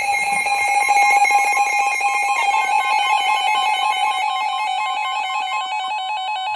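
Emergency alert attention signal: a loud, steady electronic tone of two pitches sounding together, announcing a severe thunderstorm warning.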